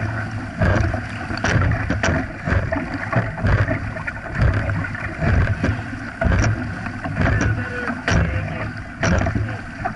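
Dragon boat crew paddling hard: the paddles catch and pull through the water in a steady rhythm of about one stroke a second, with water splashing and rushing along the hull right beside the microphone.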